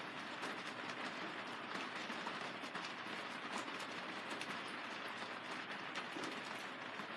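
Steady rain falling on the plastic film of a vinyl greenhouse: an even hiss dotted with many small, sharp drop ticks.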